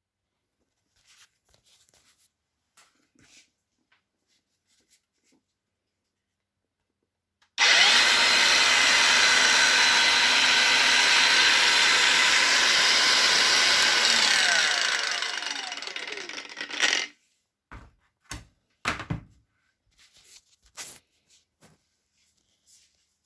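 SeeSii 21V cordless angle grinder running at full speed for about seven seconds, a steady motor whine under a loud hiss, then winding down with a falling pitch once released. Light handling clicks and a few knocks before and after.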